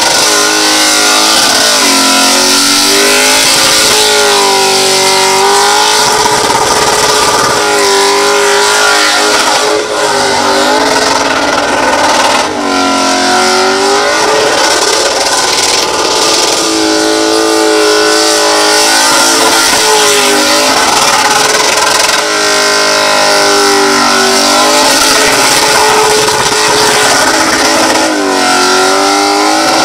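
Holden VY SS Commodore's V8 revving hard in a burnout, the engine note rising and falling over and over every few seconds as the throttle is worked, over the constant hiss of the spinning rear tyres.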